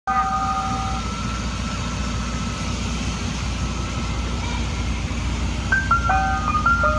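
Ice cream truck's engine running with a steady low rumble. A few held chime notes die away about a second in. Near the end the truck's jingle starts up, a tune of stepped bell-like notes.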